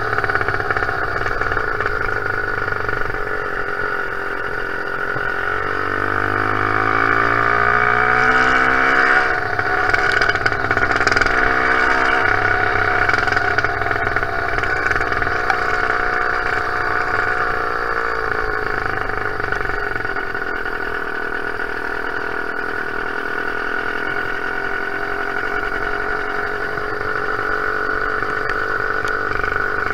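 Zeda 80 two-stroke motorized-bicycle engine with a Thunder muffler, running while riding. Its pitch rises and eases off several times as the throttle is opened and closed, with the biggest climb several seconds in.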